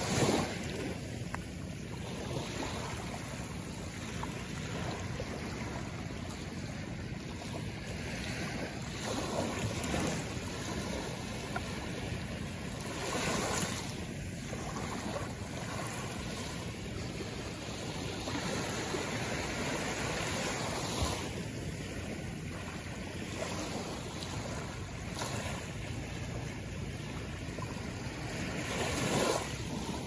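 Small waves washing up on a shore: a steady wash of water, swelling louder every several seconds as a wave breaks and then fading back.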